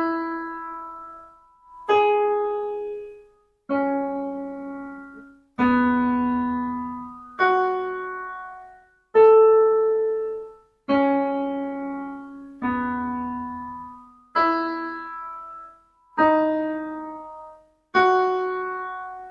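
Piano sound from a keyboard playing a slow melody of eleven single notes, about one every two seconds, each struck and left to die away. It is the sol-fa tonality exercise (do, mi, la, sol, re, fa, la, sol, do, ti, re...) that singers are to match.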